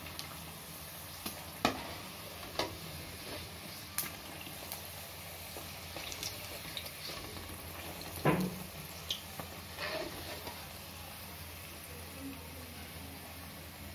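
Oil sizzling steadily as halwa-filled pooris deep-fry in a metal kadhai. A few short clinks and scrapes of a metal slotted spoon against the pan come as they are turned, the loudest about eight seconds in.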